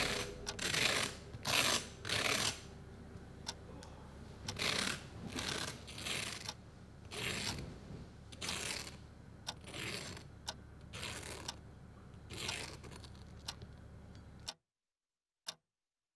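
A run of short, irregular scratchy swishes over a low room hum, one every half second to a second. The sound then cuts out to silence, broken by a single clock tick near the end.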